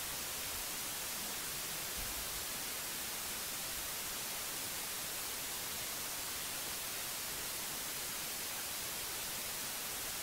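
A steady, even hiss with nothing else in it: electronic noise with no voices, music or handling sounds.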